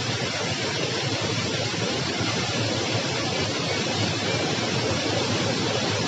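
Waterfall pouring into a rock pool: a steady rush of falling water.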